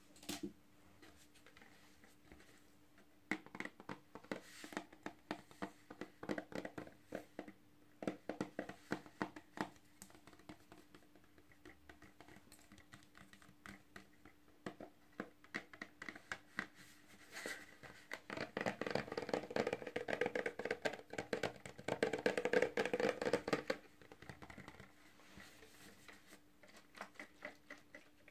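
Fingernails tapping and scratching on a plastic bottle of foaming bathroom cleaner: quick irregular taps, a denser, louder stretch of scratching about two-thirds of the way through, then lighter taps near the end.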